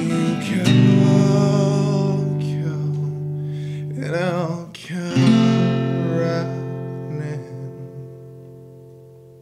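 Acoustic guitar strumming sustained chords under a male voice singing a wavering held note. Just after the halfway point one last chord is struck and left to ring, fading away slowly: the end of the song.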